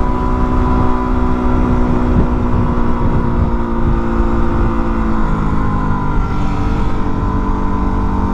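Yamaha WR250R's single-cylinder four-stroke engine running at steady riding revs, with wind rumbling on the microphone. The engine note drops lower about five seconds in.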